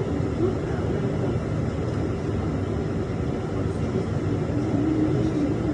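Steady low background rumble of an aquarium hall, with faint, indistinct voices now and then.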